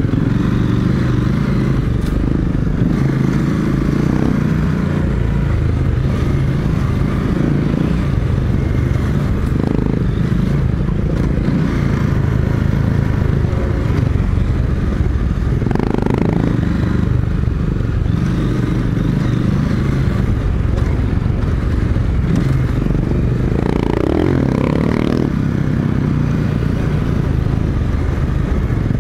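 Adventure motorcycle engine running steadily while riding along, heard from on board the bike, with small swells in revs about halfway and again near the end.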